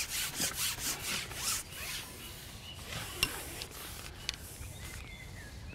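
A carbon fishing pole being pushed out over the bank, rubbing in quick rasping strokes about five a second for the first second and a half, then quieter with a couple of faint clicks.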